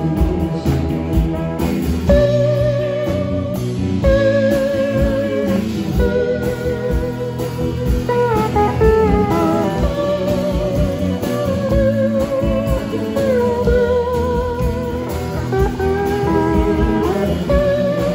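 Live rock band playing an instrumental passage: an electric guitar plays a lead line of long, wavering held notes over bass guitar and a drum kit.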